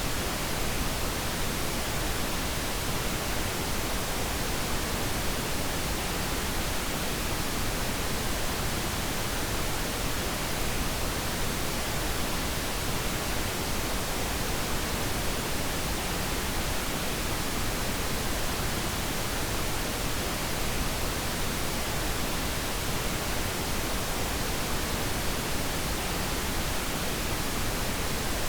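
Steady pink noise, an even unchanging hiss across low and high pitches, played as a sleep aid.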